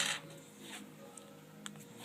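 Quiet background music with a steady held tone, and two faint short clicks in the second half.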